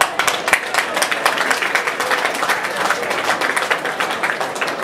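A small crowd of spectators applauding: a dense, irregular patter of separate hand claps with crowd chatter underneath.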